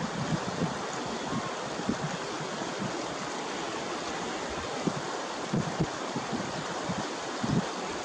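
Shallow mountain river rushing over rocks: a steady rush of white water, with a few soft low thumps now and then.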